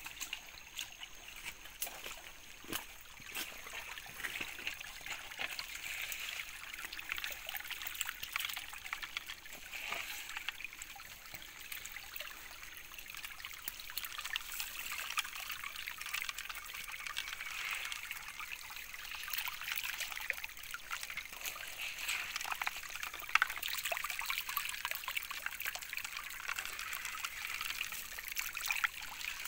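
Water running and splashing through a wooden sluice box, with scattered sharp clicks of gravel and stones knocking together as they are worked through it by hand.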